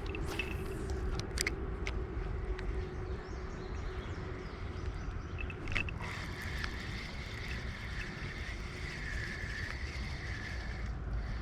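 Fishing reel being cranked, a steady whir with a few clicks. About six seconds in it turns to a higher whir, which stops near the end.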